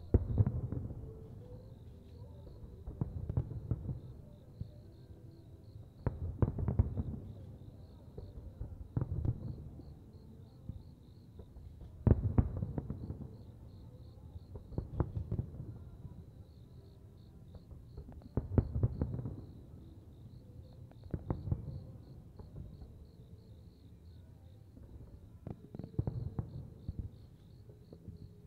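Aerial firework shells bursting, each a deep boom with a short crackle, about nine of them at intervals of roughly three seconds. Insects chirp steadily behind them.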